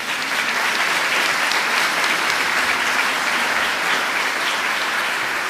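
Audience applauding, breaking out at once and holding steady.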